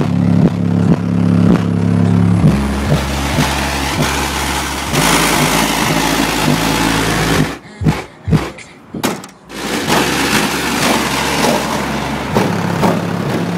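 Bass-heavy electronic music played loud through four 12-inch Pioneer Championship Series subwoofers driven by a Rockford Fosgate Prime 1000.1 amplifier with its gains turned all the way up. A deep bass line carries a kick beat about twice a second in the first few seconds. The sound drops out briefly a few times just past the middle.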